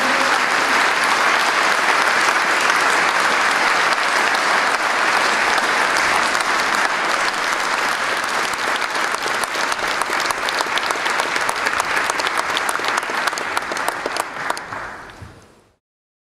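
Large audience applauding, a dense, steady clapping that thins so single claps stand out more toward the end, then fades out quickly just before the end.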